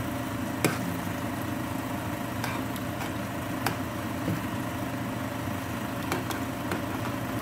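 Steady mechanical hum in the background, with a few sharp clicks of a metal spoon knocking against the cooking pot as the kimchi stew is stirred. The loudest click comes about half a second in.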